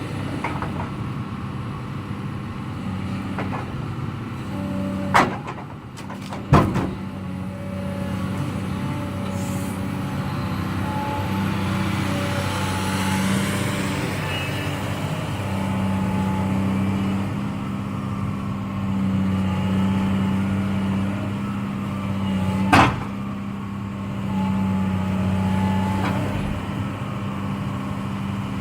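Excavator's diesel engine working steadily, swelling and easing under hydraulic load, with a faint hydraulic whine. Three sharp knocks sound about five seconds in, about a second and a half later, and again near the end, during log loading.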